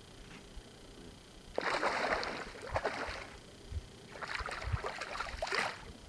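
A hooked bass splashing and thrashing at the water's surface beside the boat in two bouts of about a second and a half each, as it is reeled in to be landed.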